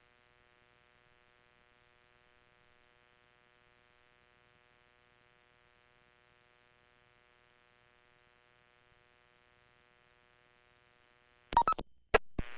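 Police radio scanner recording idling between transmissions: a faint steady electrical hum and hiss. Near the end, a few sharp loud clicks as a transmission keys up.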